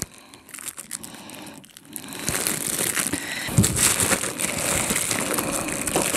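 Plastic cling film crinkling and a bamboo sushi mat rustling as a potato roll is rolled up and pressed by hand. It starts with a few faint clicks and becomes a steady crinkling about two seconds in, with a couple of soft knocks against the table.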